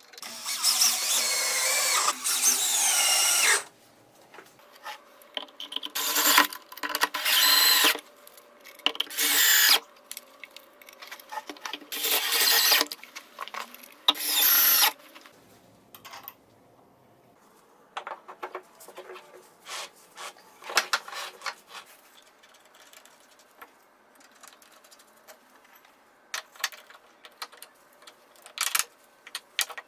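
Cordless drill driving screws into a wooden vise jaw in about six short runs over the first fifteen seconds, the first and longest lasting about three and a half seconds. In the second half, the quieter repeated clicking of a ratchet wrench tightening nuts.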